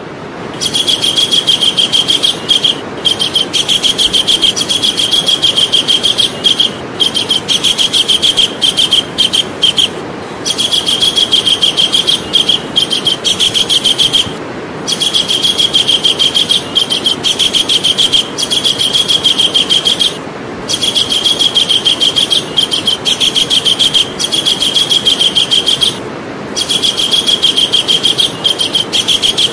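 Javan kingfisher calling: long bouts of rapid, high repeated notes, each bout lasting several seconds and broken by brief pauses, over a steady background hiss.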